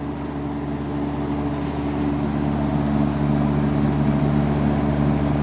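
Robeson model 2385 reversible box fan running on high speed in reverse: a steady motor hum over an even rush of air from the blade.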